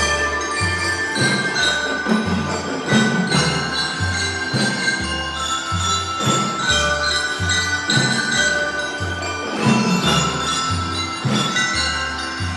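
A drum and lyre corps playing a Christmas tune: bell lyres ring out the melody over a steady bass drum beat of about two strokes a second.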